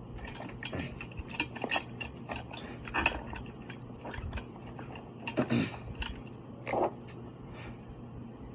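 Close-up eating sounds from a seafood boil: irregular clicks and crunches of shells being cracked and picked apart, with chewing. The louder crunches come about three, five and a half and seven seconds in.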